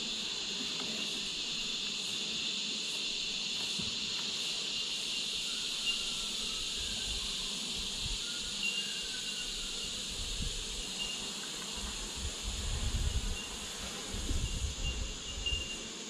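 Steady, high-pitched insect hum from honeybees buzzing around an opened hive. A few low rumbles come in about three-quarters of the way through.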